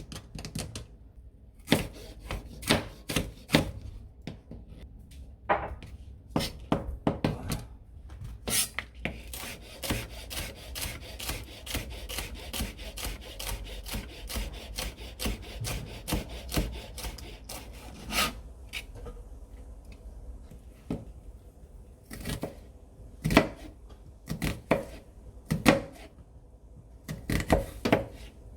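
Kitchen knife chopping vegetables on a cutting board. Scattered single cuts give way to a quick, dense run of chops in the middle, then slower, separate strokes again.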